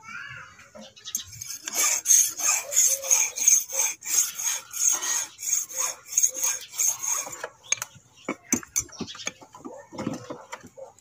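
Hand file scraping back and forth on brass while a morchang (jaw harp) is shaped by hand, in even strokes about two a second. The filing stops about three-quarters of the way through, followed by a few light metal clicks and taps.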